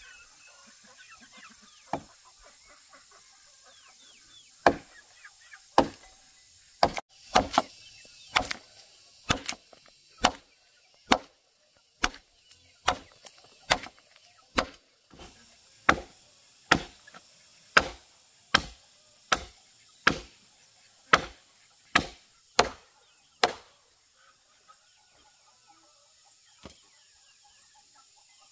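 Machete chopping into a freshly felled tree trunk: about two dozen sharp, hard strikes at a steady pace of roughly one a second, which stop a few seconds before the end.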